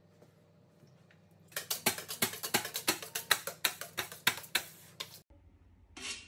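Metal bench scraper and palette knife scraping and clicking against a countertop while melted chocolate is worked back and forth to cool it for tempering. A quick run of sharp scrapes and taps, about four a second, starts about a second and a half in and stops abruptly near the end.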